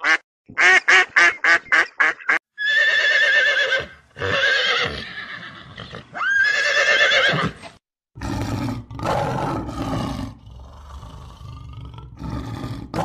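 A quick run of short quacks, then three long horse whinnies with a quavering pitch, followed by several seconds of lower, rougher animal noise.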